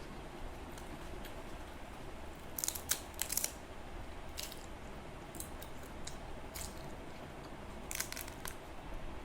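Close-miked eating: a person chewing and biting into crisp food, with scattered crunches and two clusters of sharp crackles, about three seconds in and again near the end.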